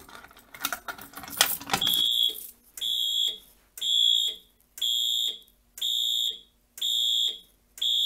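Keys rattling and clicking in a pull station's lock, then, about two seconds in, a fire alarm horn starts sounding short beeps about once a second. This is a Simplex 4010 panel in walk test pulsing the tripped point's number, point 8, over the notification appliances.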